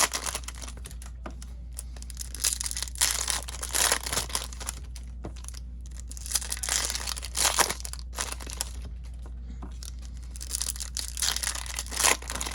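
Foil trading-card pack wrappers being torn open and crinkled, with cards being handled, in irregular rustling and crackling spells.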